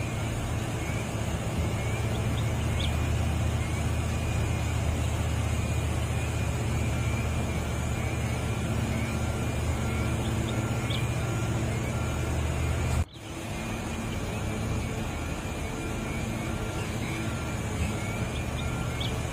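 Heavy diesel engine running steadily with a low hum. The sound drops out abruptly for an instant about two-thirds of the way through, then carries on.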